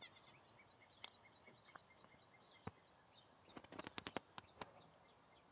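Very quiet: a fox squirrel biting and chewing a peeled banana held in the hand, heard as a few sharp little clicks, most of them bunched about four seconds in. Faint birds chirp in the background during the first two seconds.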